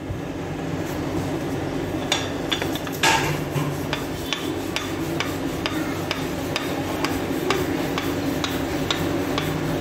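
A wooden rolling pin rolling out pizza dough back and forth on a board, a steady rubbing with light regular clicks about twice a second and one louder knock about three seconds in.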